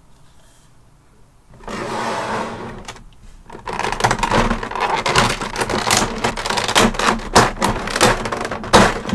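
Clear plastic blister tray crinkling, crackling and clicking as it is handled. A short rustle comes about two seconds in, and dense, irregular crackling follows from about four seconds on.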